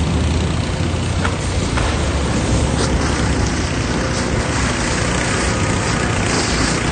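A fire engine's motor running steadily under a constant rushing noise.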